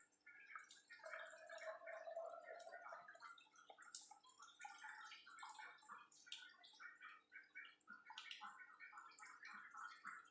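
Herbal cough remedy being poured through a tea strainer: a faint trickle of liquid with scattered small drips and splashes.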